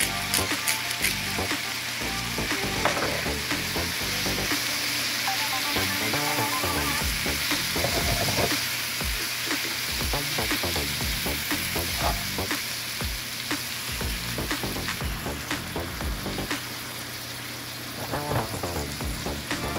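Cabbage and red bell pepper strips sizzling in a hot skillet while a spatula stirs and scrapes through them, with frequent clicks and knocks of the utensil against the pan.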